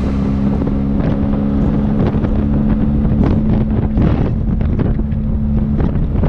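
BMW R1250 GS Adventure's boxer-twin engine running at a steady cruise while riding, with heavy wind rush on the helmet-mounted camera's microphone.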